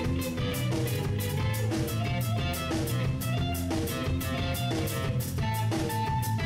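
Instrumental progressive rock played by a trio: a drum kit keeps a steady beat with regular cymbal strokes under bass guitar and electric guitar. A high held guitar note comes in near the end.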